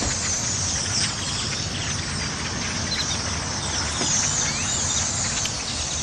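A massive flock of black birds calling all at once: many overlapping high chirps and squeaks blending into a steady din, over a low steady rumble.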